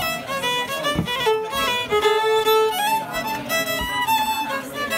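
Violin played with the bow close up: a tune of quickly changing notes, a few of them held longer near the middle.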